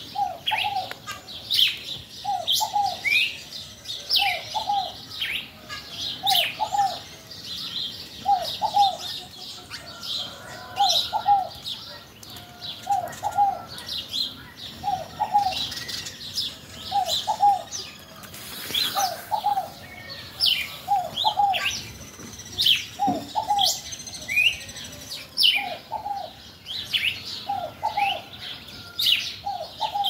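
Several birds calling and chirping at once: a low two-part cooing call repeats about once a second, under many short, higher chirps and whistles.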